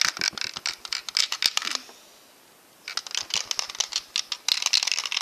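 Handmade LEGO candy machine rattling and clicking as it is handled and turned over, in two spells of about two seconds with a short quiet gap between.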